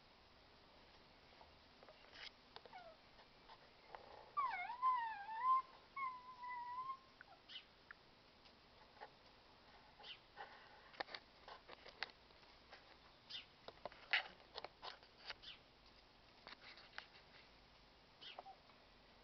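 Puppies whimpering: one pup gives a wavering, high whine a few seconds in that settles into a held note, followed by scattered faint clicks and rustles.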